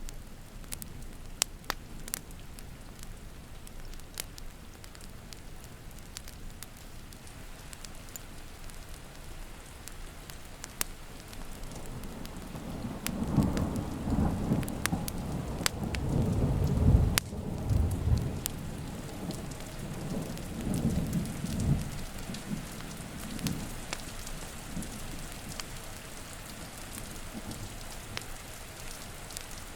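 Steady rain with a long roll of thunder rumbling in about twelve seconds in, loudest just past the middle and dying away about two-thirds of the way through. The sharp pops of a crackling wood fire sound now and then.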